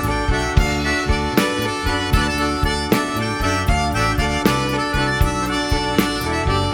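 Cajun band playing an instrumental break, a reedy accordion lead carrying the melody over bass and a steady beat.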